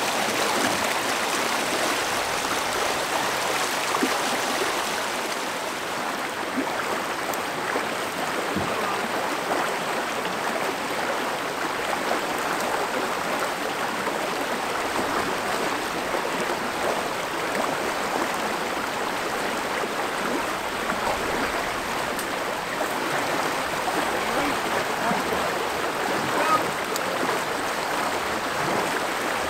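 Flowing river water rushing steadily, an even hiss of moving water without pauses.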